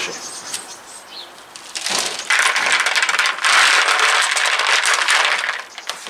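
Coarse akadama granules poured from a plastic tray into a plastic bonsai pot as its drainage layer: a few light clicks of grains at first, then about two seconds in a dense, gritty rattle of many small grains that lasts about four seconds.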